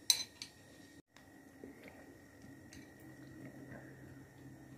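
A metal spoon clinks sharply against a ceramic bowl just after the start, with a second, smaller click soon after, then quieter spoon taps and scraping in the bowl with soft chewing.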